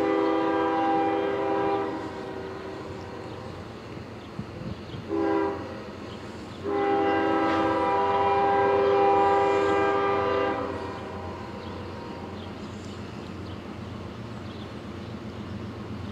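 Freight locomotive air horn sounding a chord of several notes: a long blast, a short one about five seconds in, then a long one of about four seconds, the close of the long-long-short-long grade-crossing signal. A low steady rumble from the approaching train runs under it.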